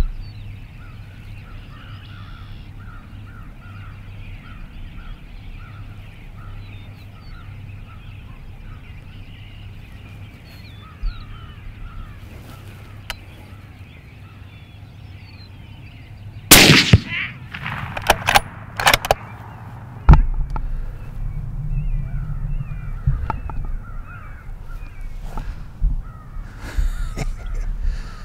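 Crows cawing repeatedly in the distance, then, a little over halfway, a loud rifle shot followed by several more sharp knocks over the next few seconds.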